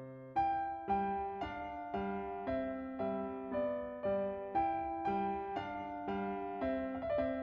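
Background music: gentle piano or electric piano playing a slow melody with chords, notes struck about once or twice a second and fading.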